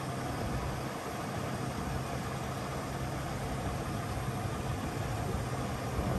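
Scania P260 truck's diesel engine running steadily with a low hum, powering the hydraulics of its Fassi F380 loader crane during a lift.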